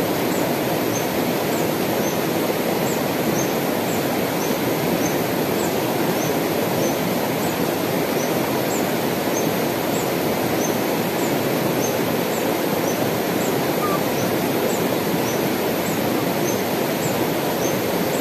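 Mountain river rushing over rocks: a steady, even rush of water. Faint high chirps repeat a couple of times a second throughout.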